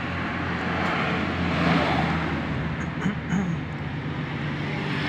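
Road traffic: a motor vehicle's engine running close by with a steady low hum, growing louder about one and a half seconds in as it passes.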